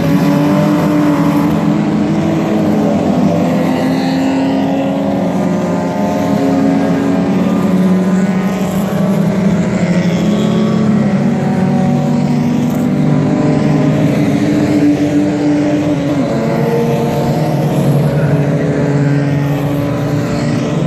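A field of race cars accelerating away after the start, many engines overlapping as they rev up through the gears, their notes rising and dropping back with each shift.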